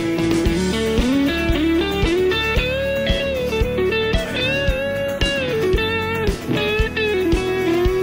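Live band's instrumental break: a Telecaster-style electric guitar plays a lead melody with bent notes over steady drums.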